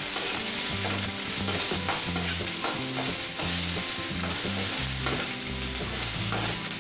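Chopped vegetables frying in oil in a kadhai, a steady sizzling hiss, while a slotted steel spatula stirs and scrapes them around the pan in irregular strokes.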